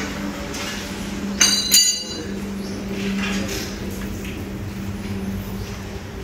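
Two sharp metallic clinks, a third of a second apart, about a second and a half in, ringing like struck metal, over a steady low hum.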